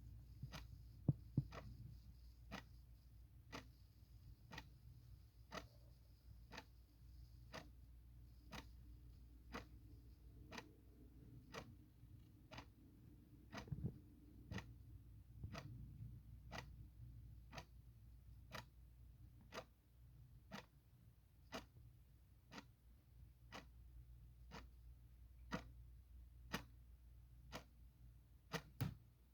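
Clock ticking steadily, about one sharp tick a second, over a faint low hum.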